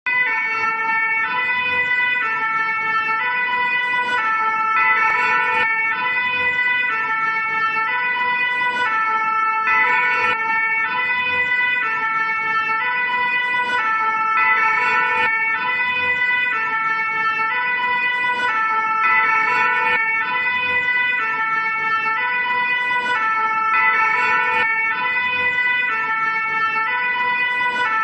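French fire-brigade two-tone siren (the 'pin-pon') alternating evenly between its two notes, with no rise or fall in pitch between them. It keeps going at a steady loudness.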